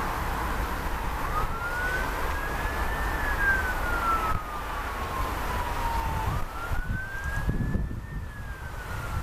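A distant emergency-vehicle siren wailing: a single tone that climbs quickly and falls away slowly, twice, over the low rumble of wind on the microphone.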